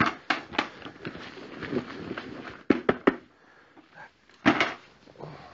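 Handling noises: scattered knocks and rustling as gear is picked up and moved about, with two sharp knocks close together near the middle and a longer rustle about four and a half seconds in.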